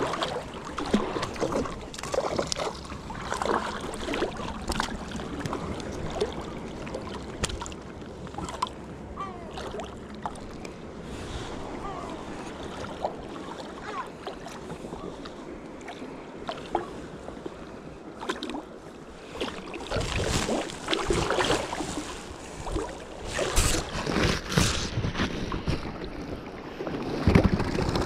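Water splashing and lapping at close range, with wind gusting on the microphone and scattered small knocks; the splashing and wind come in louder surges near the end.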